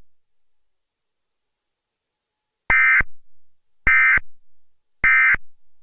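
Emergency Alert System end-of-message data tones: three short, harsh, buzzy bursts of digital warble about a second apart, starting a little over halfway through.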